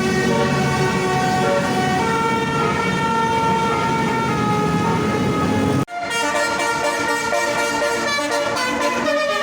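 Indonesian 'basuri' multi-tone bus air horn playing a tune in held notes that step from pitch to pitch. The sound cuts off abruptly about six seconds in, and another horn tune starts straight after.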